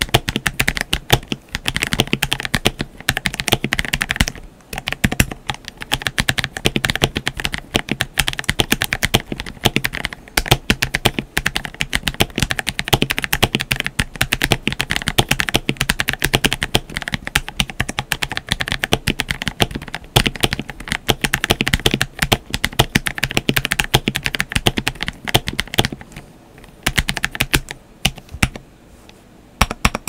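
Fast, continuous typing on a KBD67 Lite R2 mechanical keyboard fitted with Blueberry Lemon frankenswitches and MT3 Dasher keycaps. The switches are heavy, tactile and non-clicky but snappy: Outemu Silent Lemon housings with Outemu Blue stems, click jackets and two-stage 62 g springs. The keystrokes run densely, with a short pause about four seconds in and a longer lull a few seconds before the end.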